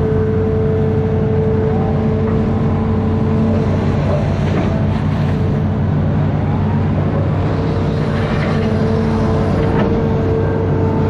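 Amphibious excavator's diesel engine running steadily under work, with a high steady whine that drops out for a few seconds in the middle and a few faint knocks.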